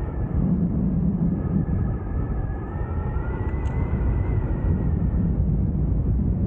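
Airflow buffeting the camera microphone of a paraglider in flight: a steady low rumbling rush, with a faint high wavering whistle that fades out about five seconds in.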